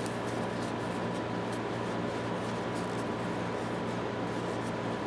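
Steady background hum with a faint steady tone, and scattered faint light clicks.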